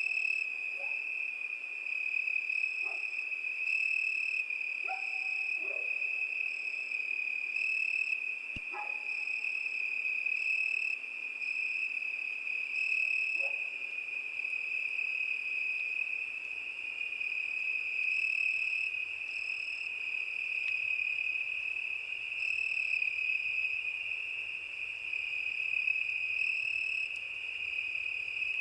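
Crickets chirring in a steady, unbroken high-pitched chorus, with a higher insect trill switching on and off in short spells. A few brief low calls sound in the first half.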